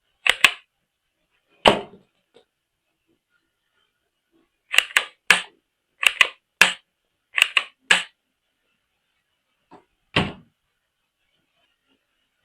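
Sharp plastic clicks and taps from handling hard plastic toy parts, coming in short pairs and small groups with pauses between, the last a single heavier knock.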